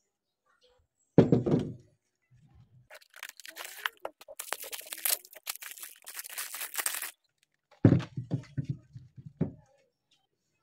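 Thin plastic bag crinkling and rustling as a new shock absorber is pulled out of its wrapping. Low thunks of the heavy shock absorbers being set down on the table come once about a second in and several times near the end.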